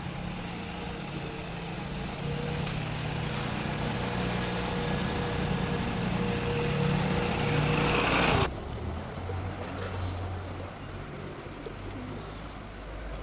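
Motorcycle engine running as it rides over snow, getting louder until the sound cuts off abruptly about eight seconds in; then pigeons cooing over a low hum.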